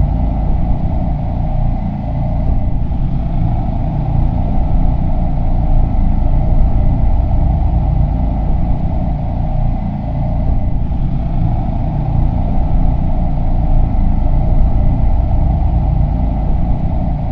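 A loud, steady low rumble with a faint high steady tone over it, dipping briefly about every eight seconds, like a looped ambient sound effect.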